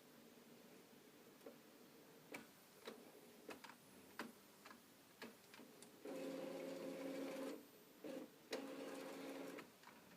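Epson Stylus Photo R800 inkjet printer working through a disc print: scattered clicks and ticks from its mechanism, then two stretches of motor whirring with a steady hum, about six seconds in and again about eight seconds in.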